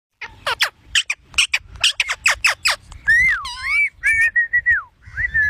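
Pet parrot calling: a rapid run of sharp falling chirps, about four a second, then whistled notes that glide up and down and hold steady.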